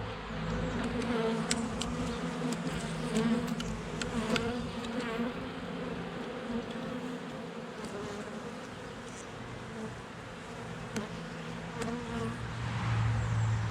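Many honeybees buzzing around an opened nuc during a frame inspection, a steady, slightly wavering hum; the colony is disturbed and, to the beekeeper, unhappy. A few light clicks are heard over the hum.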